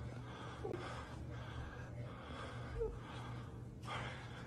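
A person breathing hard and fast close to the microphone, in short, frightened breaths coming about every half second, over a faint steady low hum.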